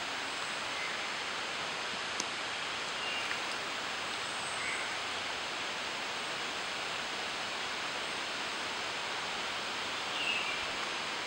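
Amami thrush singing: short, thin whistled phrases, faint about three seconds in and clearer near the end, over a steady hiss of background noise.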